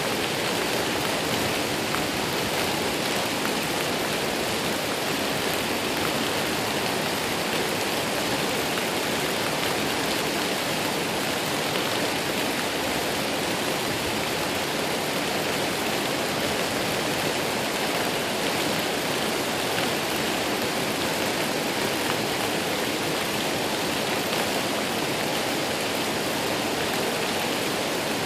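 Waterfall rushing: a steady, unbroken roar of falling and splashing water.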